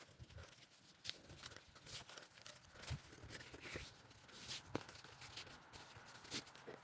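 Faint handling noises: scattered light clicks and short rustles as the air horn is refastened into the dirt bike's exhaust.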